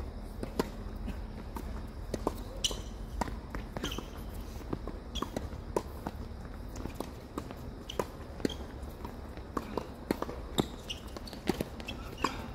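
Tennis balls struck by racquets and bouncing on the court during a doubles rally: a string of sharp, irregular pops, a few a second.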